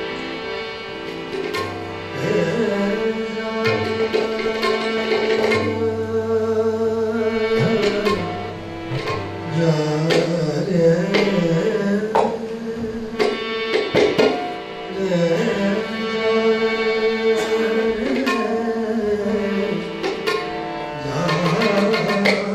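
Harmonium holding reedy sustained chords, with tabla strokes and a man singing over them; the tabla strokes come thickest around the middle and near the end.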